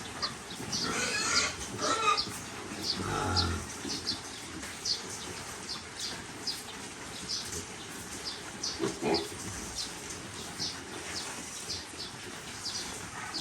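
Hungry piglets squealing and grunting at feeding time, loudest in the first few seconds, over a steady run of short high chirps.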